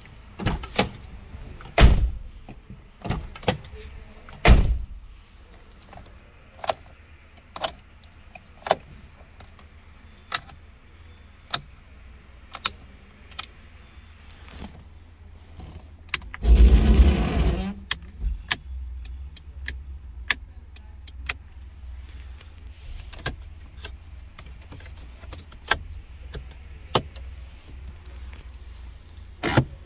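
Interior fittings of an Alfa Romeo Arna clicking and clunking as they are worked by hand: the door release handle, switches and dashboard levers. The sharp clicks come one after another, the loudest about two and four and a half seconds in. A rougher noise lasts a little over a second about halfway through.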